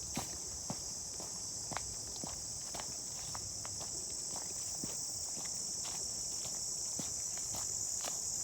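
Steady high-pitched chorus of insects in the woods, with footsteps at a walking pace, about two a second.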